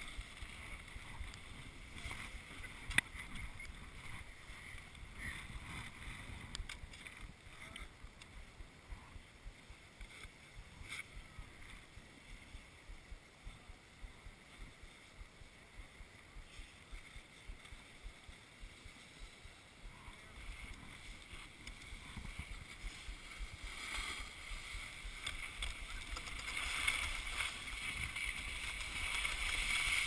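Wind rumbling on a body-worn camera's microphone, with a single sharp knock about three seconds in. Near the end a broad scraping hiss swells as a snowboard slides over the snow.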